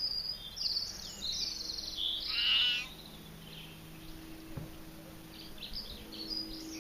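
A small bird singing, a run of high warbling chirps over the first three seconds, then scattered chirps near the end.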